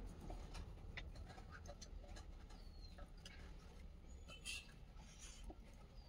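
Near silence: faint, scattered light ticks and rubbing from hands at work, with one faint short chirp about two and a half seconds in.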